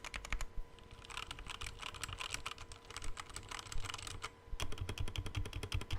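Typing on a Redragon K617 Fizz, a cheap plastic hot-swap mechanical keyboard: fast runs of keystrokes clacking, with a brief pause about four seconds in before the typing picks up again.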